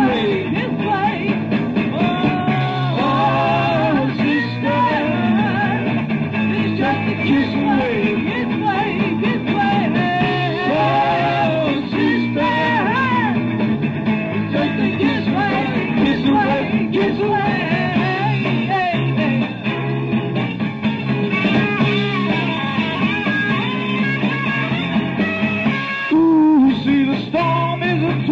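Rock and roll song with a lead singer over a band backing with a steady bass line.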